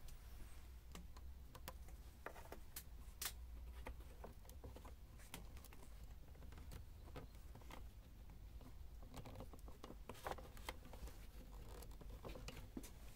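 Faint, irregular small clicks and scratches over a low steady hum.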